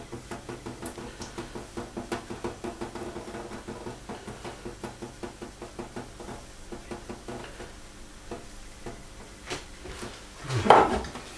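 Light clicks and taps of kitchen utensils, about three or four a second, as casein curds from vinegared milk are worked and drained. A louder clunk comes near the end.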